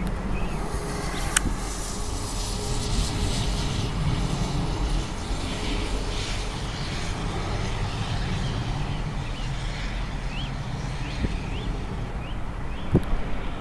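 Boeing 737-800 jet airliner rolling out on a wet runway after landing: a steady jet-engine rush over a low rumble, with a high hiss of spray that thins out after about nine seconds. One sharp click about a second and a half in.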